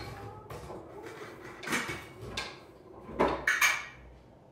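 IKEA Olov metal table leg being screwed by hand into a tabletop's mounting plate: scraping and clinking as the leg turns, with louder rasps about two seconds in and again between three and four seconds.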